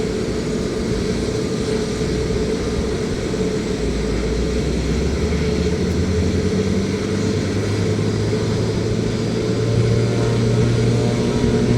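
Aircraft engine running on the ground with a steady hum, its pitch climbing from about four seconds in and getting a little louder toward the end as power comes up.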